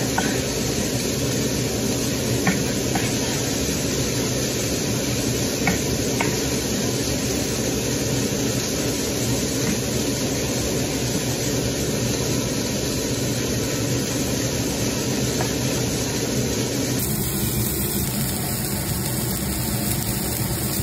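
A steady rushing hiss, with a few faint taps of a chef's knife on a wooden cutting board in the first seconds as a cooked veal rib chop is sliced.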